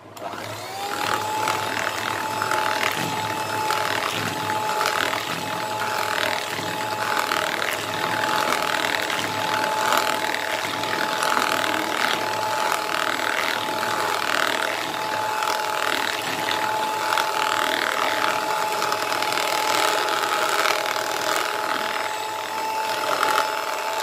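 Electric hand mixer running steadily, its twin metal beaters whisking ghee and milk in a plastic bowl, with a constant motor whine and quick clicks of the beaters against the bowl. The motor spins up at the start and cuts off at the end.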